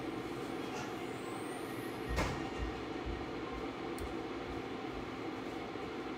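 Steady mechanical hum with a few fixed tones, with one sharp knock about two seconds in and a faint click near four seconds.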